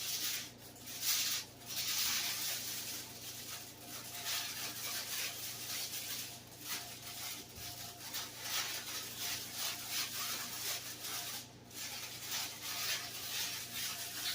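Aluminium foil crinkling and rustling on and off as it is folded and wrapped around a stuffed fish.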